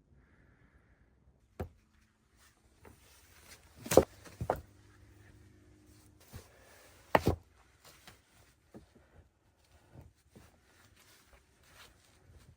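A series of knocks from hard objects being handled: two loud, sharp impacts about four and seven seconds in, a smaller one before and just after the first, and light clicks and taps in between.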